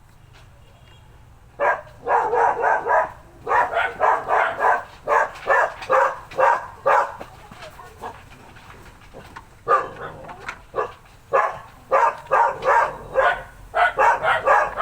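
A dog barking over and over in quick runs of short barks, with brief pauses between the runs.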